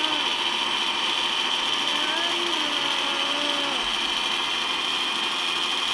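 Electric food processor motor running steadily with a high whir, grinding dried tarhana crumbles into powder in its chopper bowl.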